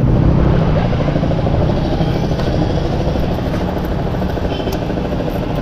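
Motorcycle engine running steadily, a low even hum with rumble underneath.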